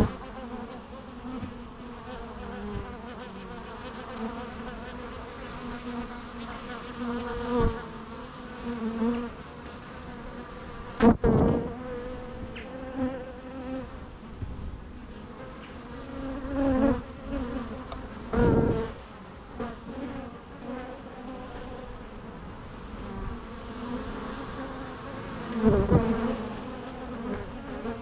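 Bees buzzing, a steady droning hum that swells louder for a moment several times.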